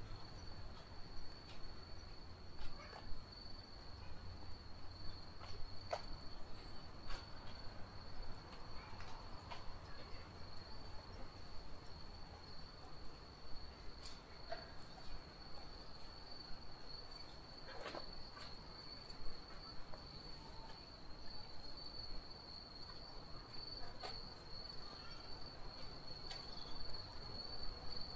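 An insect singing one steady, unbroken high-pitched note, over a low hum, with a few scattered clicks.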